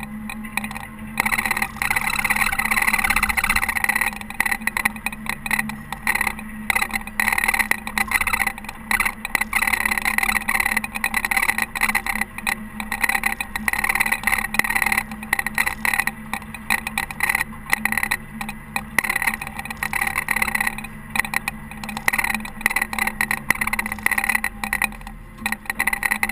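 Caterpillar TH330B telehandler running while snowplowing: a steady engine drone under a rough noise that keeps rising and falling.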